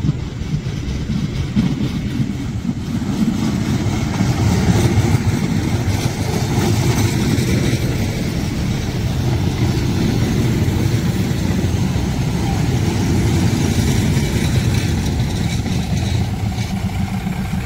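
State Railway of Thailand diesel railcar train passing close by, its diesel engines running loudly and steadily with noise from the wheels, growing louder a few seconds in.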